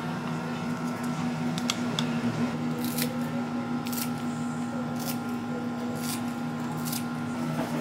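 Kitchen scissors snipping green onion, with sharp cuts about once a second, over a steady low hum.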